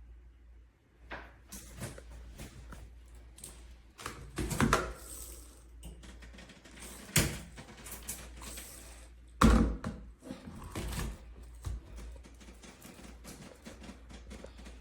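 Plastic shower head parts being handled and fitted: scattered clicks and knocks, with a few louder knocks, the loudest about nine and a half seconds in.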